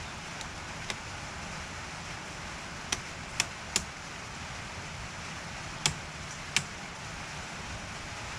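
Steady rain hiss, with about six sharp clicks or knocks scattered through it.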